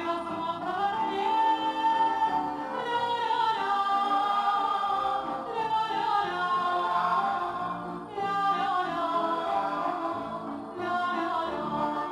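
Music with wordless singing, choir-like voices holding long notes.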